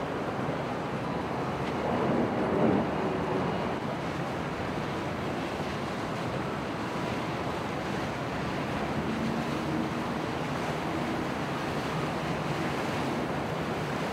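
Steady wind and water noise: waves and wind buffeting the microphone, swelling briefly about two seconds in.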